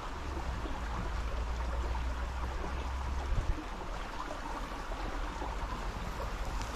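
Small river's water flowing steadily, a continuous rushing and trickling with a low rumble underneath.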